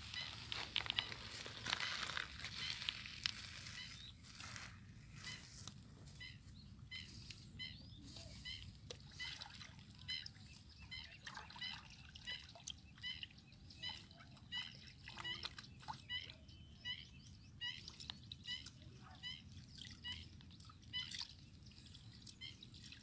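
Shallow water splashing and sloshing as a catfish is laid into the pond's edge by hand, loudest in the first few seconds. After that, small birds chirp over and over, with light splashes from a hand moving in the water.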